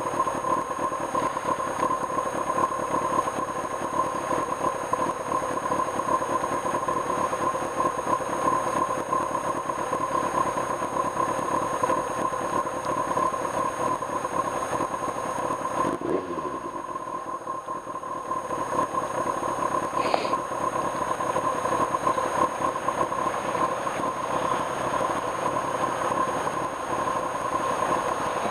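1995 Kawasaki Ninja ZX-6R's inline-four engine running under way. About two-thirds of the way through, its note falls away as the bike slows and eases off, then it picks up again.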